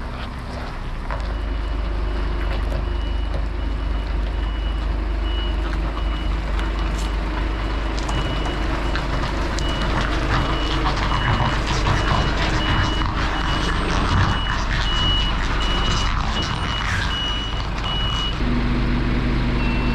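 A lorry's reversing alarm beeps steadily at an even pace over the running diesel engine as the truck backs up. The beeping stops near the end while the engine keeps running.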